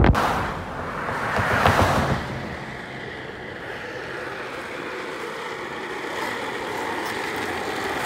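Wind and road noise from a moving car for about the first two seconds. Then the steady rolling rumble of office-chair casters on asphalt, slowly growing louder as the chair comes closer.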